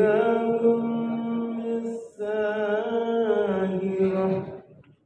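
Quran recitation (tilawah) by a girl reciting from memory: a single voice chanting in long, drawn-out held notes, in two phrases with a short breath about two seconds in, fading out near the end.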